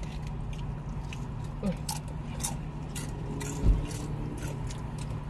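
Close-up chewing and biting of fried chicken, with scattered crisp clicks and one dull thump about three and a half seconds in, over a steady low hum inside the car.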